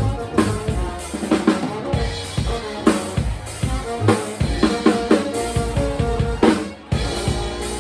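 Live band music led by a drum kit playing a steady beat of kick, snare and rimshots under bass and other held instrument notes. The sound drops out briefly near the end before the band comes back in.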